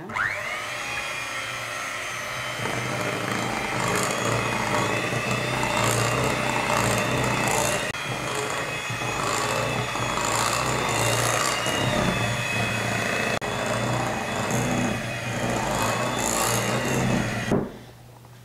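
Electric hand mixer running, its twin beaters churning thick batter in a glass bowl: a steady motor whine that spins up at the start and cuts off suddenly just before the end.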